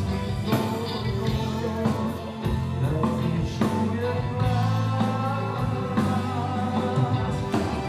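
Live band music: a singer over electric guitar and a steady low accompaniment.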